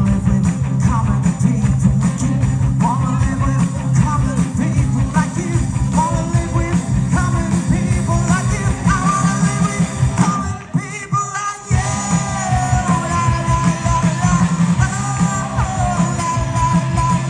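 Live rock band playing a song with sung vocals, electric guitar and drums. About ten seconds in, the band briefly stops for about a second, then comes back in.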